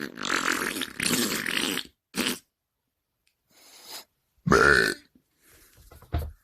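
A string of loud burps separated by short silences: a long drawn-out one at the start, a short one about two seconds in, a loud one about four and a half seconds in, and a few smaller ones near the end.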